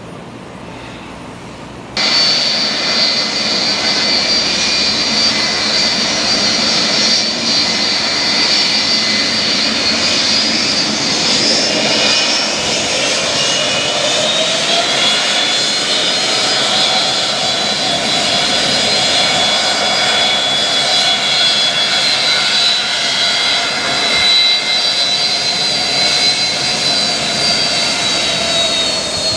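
Jet airliner's turbofan engines running as it taxis: a steady high whine over a broad rush of noise. It starts abruptly about two seconds in, and the whine rises in pitch about halfway through.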